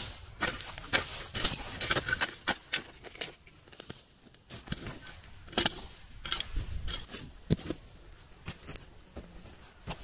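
Irregular rustling and crackling with many sharp snaps and clicks, as of dry twigs, branches and leaf litter being handled on the forest floor.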